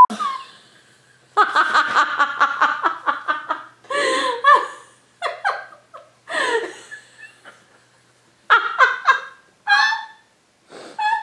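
People laughing hard: a long run of rapid pulsing laughter about a second in, then shorter bursts with gaps, and higher-pitched bursts near the end.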